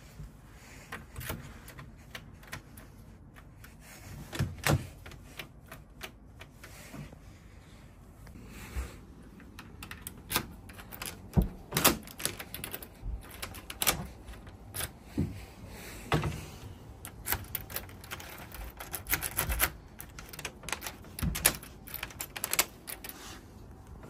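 Irregular sharp clicks and knocks of a uPVC door's lock being worked by hand: a key in a euro cylinder lock and the door's handle and lock mechanism clicking, coming thicker and louder in the second half.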